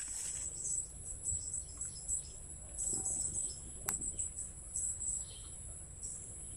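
Steady high-pitched buzz of insects such as crickets, with a single sharp click about four seconds in.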